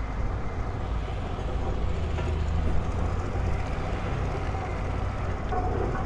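Heavy diesel construction machinery running with a steady low rumble: a rotary piling rig boring a pile hole.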